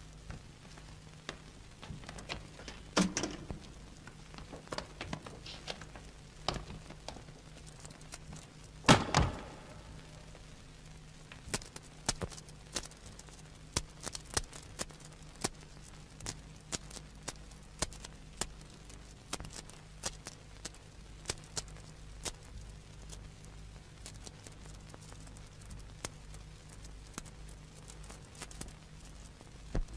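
Quiet old film soundtrack: a steady low hum with many scattered sharp clicks, and two louder thuds, about three and nine seconds in.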